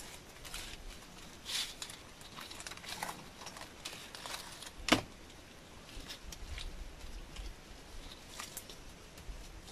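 Stiff sugar palm (Arenga pinnata) leaf strips rustling and crackling as they are woven by hand into a mat, with one sharp click about five seconds in.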